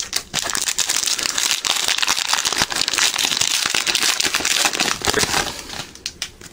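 A trading-card pack wrapper being torn open and crinkled in the hands, a dense crinkling that runs for about six seconds and then dies away.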